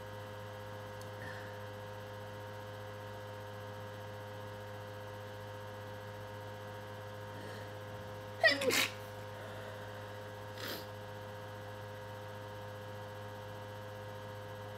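One loud sneeze a little over halfway through, its pitch falling as it goes, from a person in an allergy attack. It is followed about two seconds later by a much fainter short sound, over a steady electrical hum.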